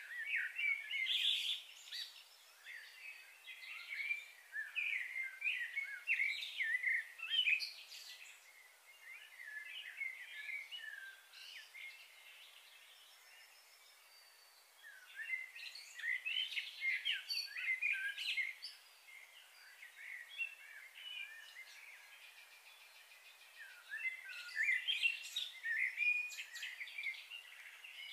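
Songbirds chirping and warbling in busy, overlapping calls, coming in three bouts with quieter stretches between.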